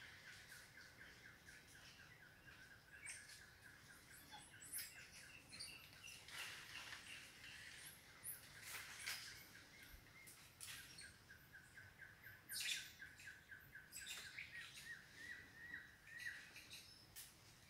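Faint high-pitched chirps and squeaky calls from forest animals, over a steady, fast-pulsing trill at one pitch.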